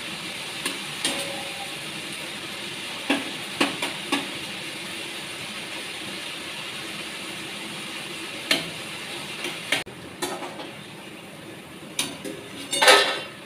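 Nimki dough pieces frying in hot oil in an aluminium kadai with a steady sizzle, while a metal spatula stirs them apart, scraping and knocking against the pan every few seconds. Near the end the sizzle drops and the fried pieces are lifted out with a loud clatter of metal on metal.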